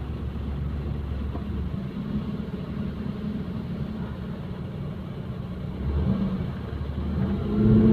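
Maruti Suzuki 800's three-cylinder petrol engine idling and given light throttle, its note rising about two seconds in and again near the end. Light throttle brings out the complained-of noise, which the mechanic traces to inside the timing side of the engine; it goes away with more throttle.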